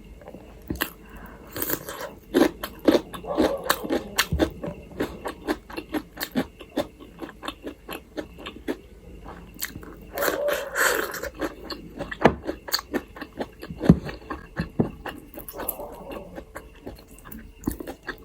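Close-miked eating: a person chewing food with frequent irregular wet clicks and smacks of the mouth.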